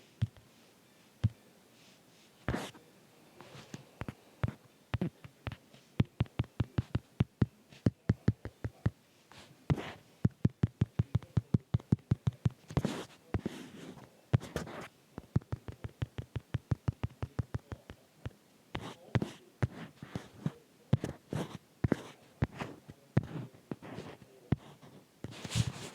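Fingertip or stylus taps on a phone's touchscreen while drawing, picked up by the phone's own microphone: irregular runs of quick taps, at times several a second.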